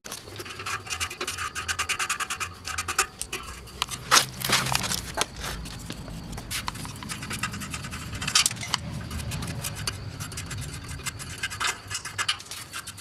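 Hand ratchet clicking in quick runs, with short pauses, as the nuts holding the exhaust axle-back muffler are loosened.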